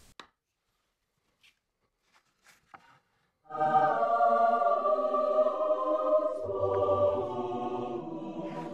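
Near silence, then about three and a half seconds in, choral music sets in: a choir sings long held chords, with deeper voices joining partway through.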